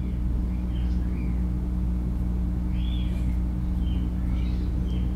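Steady low electrical-sounding hum with several even low tones, and a few faint short high chirps scattered through it.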